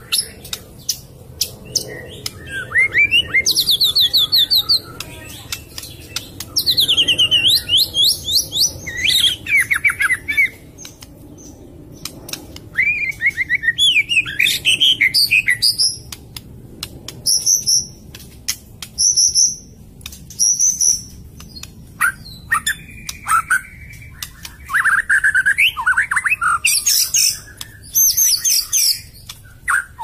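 Oriental magpie-robin (kacer) singing: loud bursts of rapid whistles, trills and sharp clicking notes, separated by short pauses.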